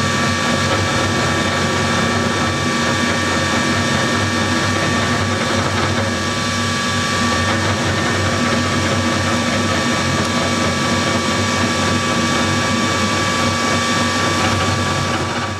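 Novakon NM200 CNC mill's spindle running steadily with a whine, its small carving bit cutting wood.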